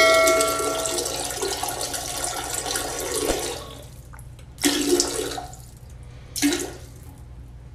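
Toilet flushing: a rush of water that fades out over about four seconds. Two short bursts of sound follow.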